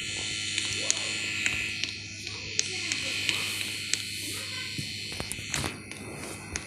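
Air conditioner running: a steady high hiss and buzz over a low electrical hum, with a few faint clicks.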